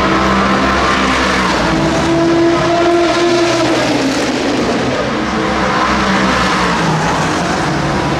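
Race cars passing at speed, several engines running at high revs at once. One engine note rises and then drops in pitch as a car goes by near the middle.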